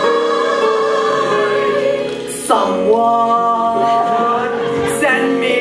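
Musical theatre cast singing together in chorus, holding long notes, with a new phrase beginning about halfway through and another near the end.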